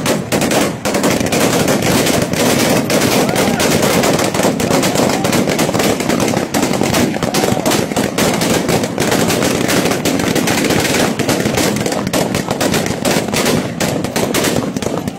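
Sustained rapid gunfire, many shots a second in long unbroken runs, fired into the air to push back protesters, with voices underneath.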